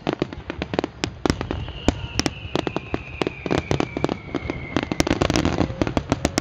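Starmine fireworks barrage: shells bursting in rapid, irregular bangs, several a second, with a long whistle falling slowly in pitch through the middle.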